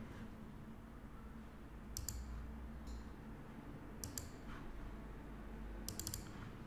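Faint computer mouse clicks: a few single and double clicks, then a quick run of several clicks near the end, over a low steady hum.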